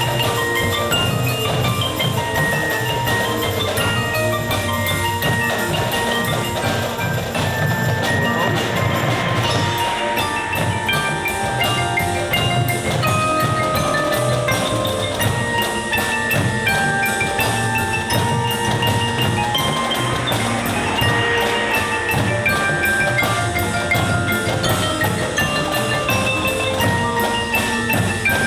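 Marching show band playing a loud, steady passage: short ringing mallet-percussion notes over a pulsing low drum beat.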